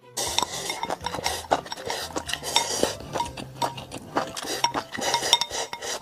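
Chopsticks clinking, knocking and scraping against metal and glass bowls as food is stirred and picked up, many quick strikes in a row.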